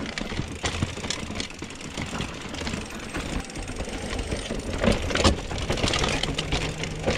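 Mountain bike rolling over a rough trail, with frame and chain clattering in many irregular knocks and a steady low rumble of rolling noise.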